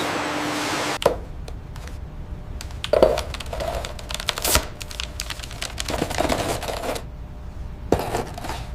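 A steady hiss that cuts off abruptly about a second in, followed by a run of irregular sharp clicks and knocks over a low rumble.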